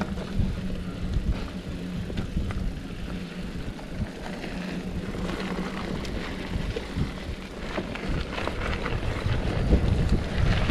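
Mountain bike on a dirt trail: wind buffeting the microphone over a low rumble of tyres on the ground, with scattered knocks and rattles from the bike, getting louder near the end.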